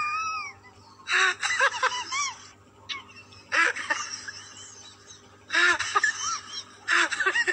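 High-pitched laughter in four short fits, each a quick run of breathy 'ha' notes, with brief quiet gaps between them.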